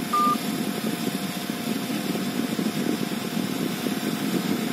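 A Xiaomi phone gives one short beep just after the start as a call ends, over a steady low rumbling background noise.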